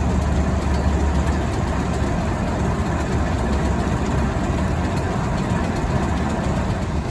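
Sugar beet piler conveyors and a beet truck's diesel engine running steadily: a continuous mechanical din over a deep engine rumble.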